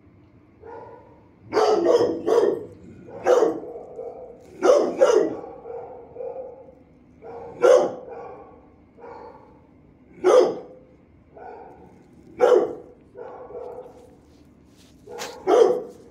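Dogs barking in a shelter kennel: sharp single barks every second or two, some in quick pairs, echoing off the hard walls, with quieter barks in between.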